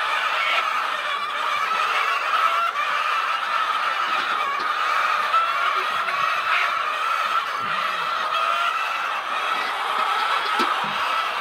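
A flock of birds calling all at once in a dense, steady chorus, many overlapping calls with no pause.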